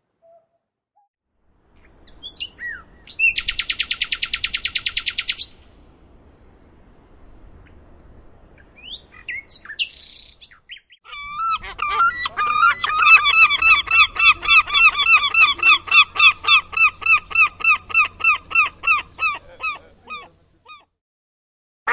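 Nightingale singing, a rapid high trill followed by scattered chirps, then, about halfway through, a seagull giving a long run of rapid repeated honking calls.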